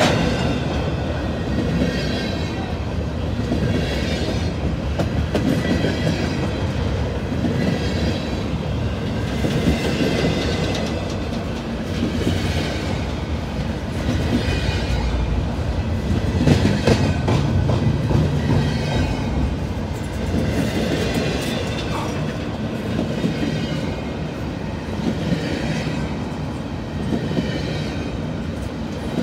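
A freight train rolling past close by: a steady rumble of steel wheels on rail, with a higher rattle that swells and fades about every two seconds as the cars go by.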